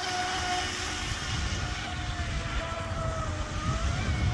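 Brushless electric RC speedboat running at speed: a steady high motor whine that dips in pitch and then rises again near the end, with a low rumble underneath from about halfway in.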